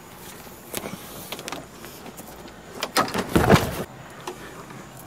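Scattered knocks and thumps of hurried movement and handling, with a louder cluster of thumps about three seconds in.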